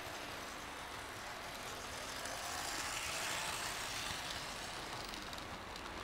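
HO-scale model train running past close by, a rushing rattle of wheels and motor that swells to its loudest in the middle and then fades.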